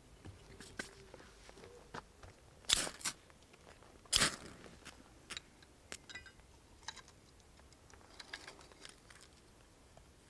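Scattered short crunches and clicks, with two louder crunches about three and four seconds in.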